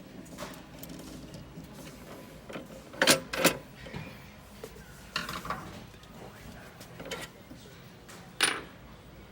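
Sharp metallic clicks and clinks of the drawer lock bars and their small fastening screw being worked at the lock housing: a loud pair about three seconds in, a few more over the next few seconds, and another loud click near the end.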